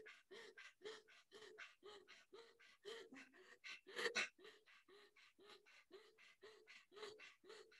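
Rapid, faint panting through a wide-open mouth with the tongue stuck out, like a panting dog: Swan Pranayam, with active inhalations and exhalations in a quick, even rhythm. One breath about four seconds in is louder.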